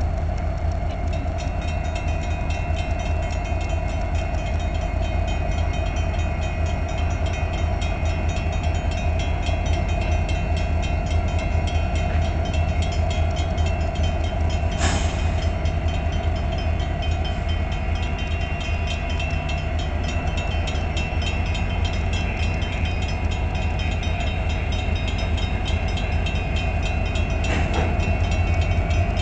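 Union Pacific diesel locomotives running as they move slowly with a lumber flatcar during switching: a steady deep engine rumble, with a sharp clank about halfway through and another near the end.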